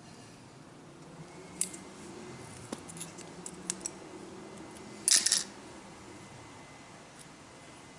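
Light metallic clicks and clinks of small parts and hand tools being handled, with a brief cluster of rattling clinks about five seconds in.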